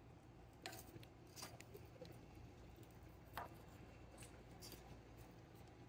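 Near silence with a few faint clicks of metal tongs against a wire campfire grill grate while corn on the cob is turned over charcoal, over a low steady hum.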